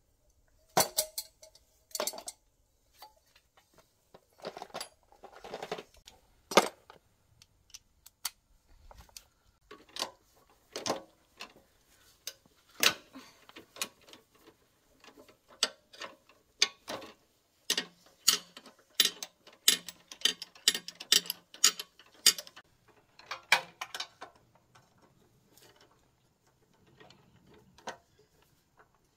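Irregular metallic clinks, clicks and knocks of hand tools and small metal parts being handled during repair of a walk-behind tiller, with a run of evenly spaced clicks, two or three a second, a little past the middle.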